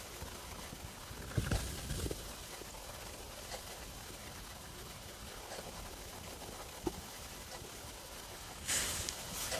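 Human stomach rumbling while digesting after a meal: a few short, low gurgles about a second and a half and two seconds in, over a steady low hiss, with a single sharp click later and a brief noisy burst near the end.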